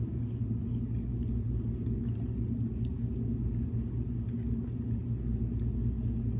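A steady low rumble with a constant hum runs throughout, with faint scattered clicks and mouth sounds from someone chewing a bite of mac and cheese and brisket.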